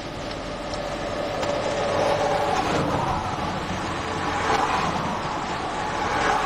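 Road traffic noise from passing vehicles, tyre and engine sound building over the first two seconds as a vehicle approaches and then staying loud.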